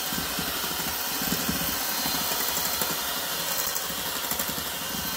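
Cuisinart electric hand mixer running steadily, its beaters beating whipped heavy cream and sweetened condensed milk in a stainless steel bowl.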